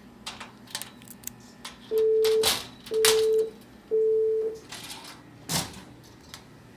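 Three evenly spaced electronic beeps, each about half a second long and all at the same fairly low pitch, with clicks and short rustling noises around them.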